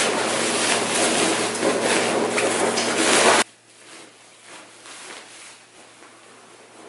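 Loud rustling of a fabric cushion cover being worked over a cushion insert close to the microphone, cutting off suddenly about three and a half seconds in. Softer fabric rustling and handling follow.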